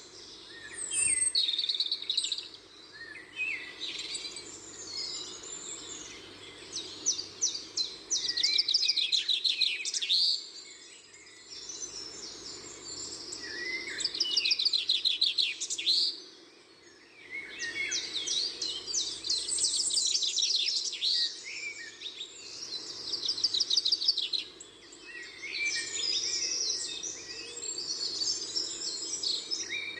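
Several small birds chirping and trilling in quick chattering runs, with short lulls, over a faint steady hum.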